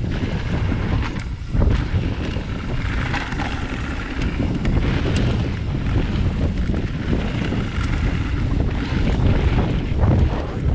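Wind rushing over a camera microphone on a mountain bike riding downhill, with the tyres crunching on the dirt trail and occasional knocks and rattles from the bike over bumps.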